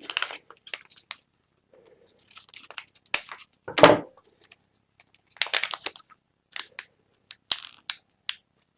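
Plastic packaging being cut open and handled, crinkling and crackling in short irregular bursts, loudest once a little before halfway.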